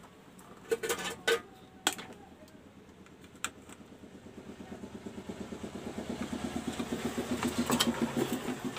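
A few sharp clicks in the first seconds, like small tools or parts handled on a circuit board. Then a fast, even, engine-like pulsing starts about four seconds in and grows steadily louder.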